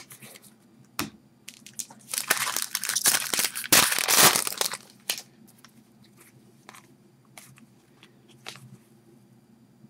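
Trading-card pack wrapper crinkling loudly for about three seconds as it is torn open and crumpled, with a few light clicks of card handling before it.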